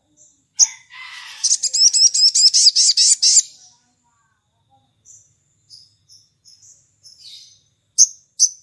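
Male olive-backed sunbird singing: a sharp high note, then a fast run of about ten repeated high chirps at roughly five a second, followed by scattered softer twitters and two sharp notes near the end.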